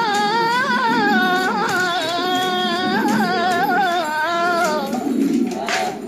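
Background music: a solo voice singing a long, wavering, ornamented line of a devotional Arabic song (nasheed), trailing off near the end.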